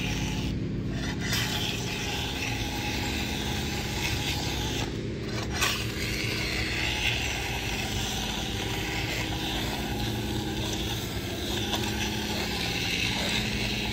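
Long-handled floor scraper pushed steadily along a concrete floor, its blade rasping as it peels up yellow-and-black hazard floor tape.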